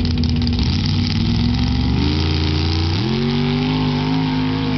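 Engine running hard, stepping up in pitch twice, about two and three seconds in, then holding at high revs.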